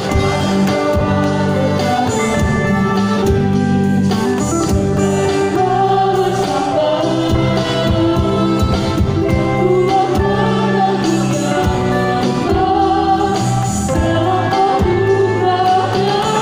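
Live church worship band playing a song with group singing, driven by an electronic drum kit and electric guitar with a steady beat.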